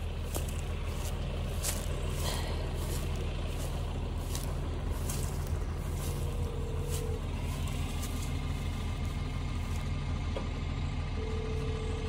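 Diesel tractor engine idling steadily. A few light ticks come in the first few seconds, and a short steady tone sounds twice in the second half.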